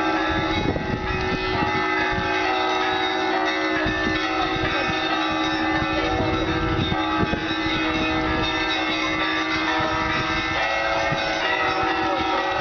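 Russian Orthodox cathedral bells ringing together, several bells of different pitch overlapping in a continuous peal, with one tone holding steadily beneath the others.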